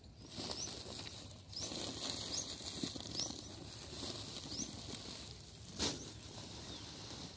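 Woven plastic sack of dry guar straw rustling as it is handled and tipped, with a single knock about six seconds in. Small birds chirp in short rising notes several times.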